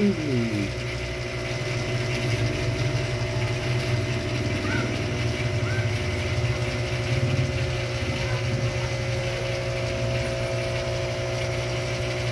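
Aquarium pump humming steadily with a fine rattling buzz.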